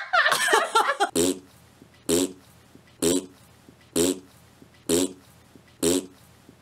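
A short fart noise repeated six times at an even pace, about once a second, each one alike. It follows a brief burst of higher, wavering sound at the start.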